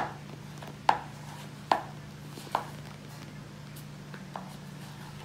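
Wooden spatula knocking against a plastic bowl while stirring a thick pastillas mixture of condensed and powdered milk: four sharp knocks a little under a second apart, then a couple of fainter ones.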